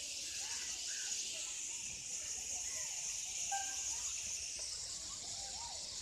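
A large flock of birds flying overhead, with scattered faint short calls over a steady high-pitched hiss.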